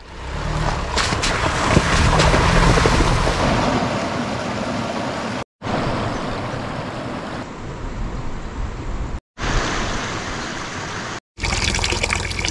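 Running water in short cuts separated by brief dropouts: a mountain stream rushing over stones, then a thin stream of water pouring from a wooden fountain spout into a trough. The first cut, which fades in, also carries a low, steady rumble.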